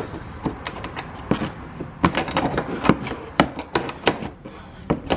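Irregular sharp clicks and knocks, several a second, as a bumper quick-release latch is fitted and tried.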